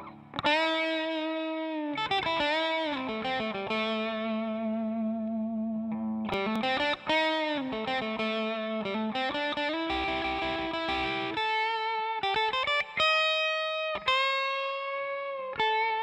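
Electric guitar played through an Electro-Harmonix East River Drive overdrive pedal, switched on. It plays a single-note lead line with string bends and vibrato that begins abruptly.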